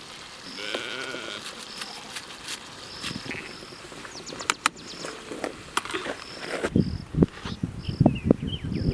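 An animal calling once about a second in, a short wavering cry, among repeated short high chirps and scattered clicks; a series of low thumps comes in during the second half.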